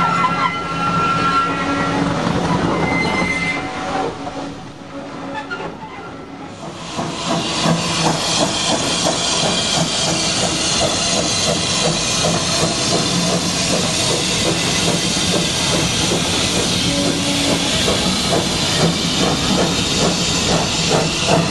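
Railway coaches rolling round a curve with a high wheel squeal in the first two seconds. After a break, a steam locomotive and its coaches run past with a steady hiss of steam and a rhythmic clatter of wheels over the rail joints.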